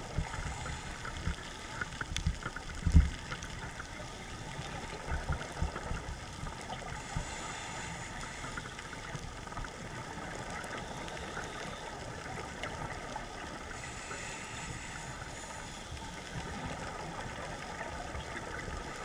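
Muffled underwater sound through a dive camera's housing: a scuba diver's exhaled bubbles gurgling in a run of low thumps over the first few seconds, loudest about three seconds in, then a steady hiss of water noise.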